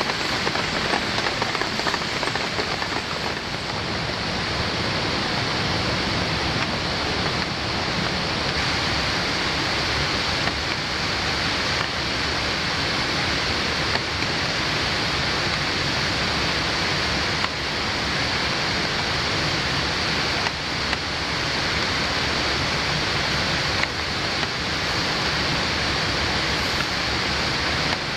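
Steady rain falling in rainforest: an even hiss with a few faint sharper drop taps.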